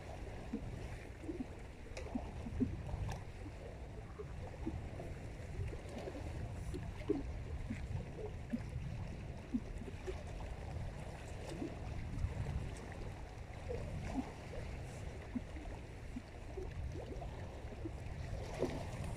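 Lake water lapping and gurgling in many small irregular splashes over a steady low rumble.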